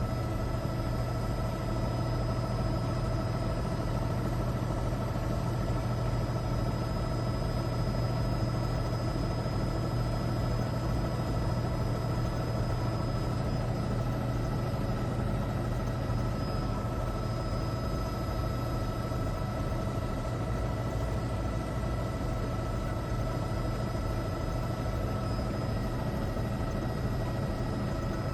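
Helicopter cabin noise: a steady low drone with several steady high whining tones layered over it, unchanging throughout.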